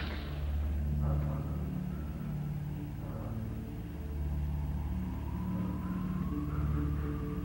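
A low, steady rumbling drone whose low pitches shift every second or so, with a faint high tone gliding in during the second half.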